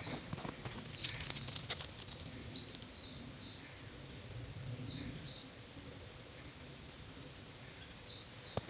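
Footsteps crunching in snow, a cluster of sharp steps in the first two seconds, then quieter, with faint high chirps scattered through the rest.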